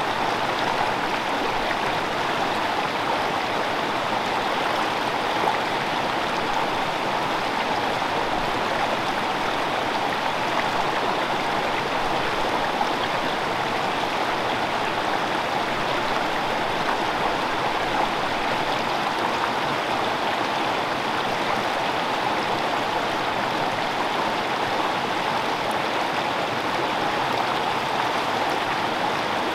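Small freestone mountain stream running, a steady, unbroken rush of water.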